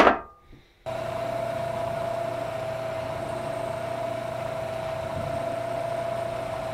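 Small benchtop metal lathe running at a steady speed while a drill bit in the tailstock chuck bores an 11/32-inch hole into a steel bar: a low motor hum with a steady whine on top. It starts abruptly about a second in.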